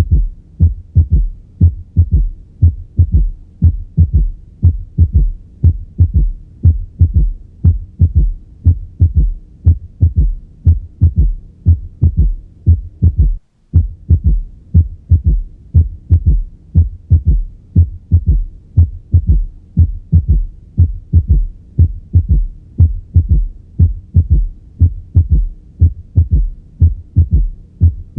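Recorded heart sounds of a third heart sound (S3) ventricular gallop: low thuds repeating steadily in the three-beat 'Ken-tuck-y' rhythm, with a brief break about thirteen seconds in. The gallop is the sign of ventricular volume overload; it is normal in children and pregnant women but pathological in older adults.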